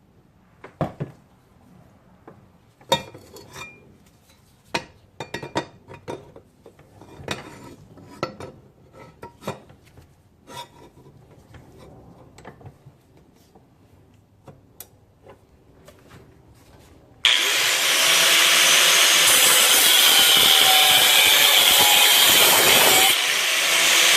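Scattered knocks and clatters of the metal exhaust pipe being handled, then about 17 seconds in a cutoff wheel bites into the 2.5-inch exhaust pipe and grinds loud and steady through the metal, easing briefly near the end.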